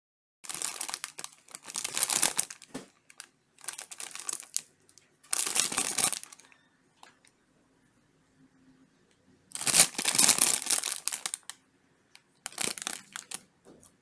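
Glossy plastic cookie bag crinkling in bursts as it is handled and turned over, with a pause of about three seconds in the middle.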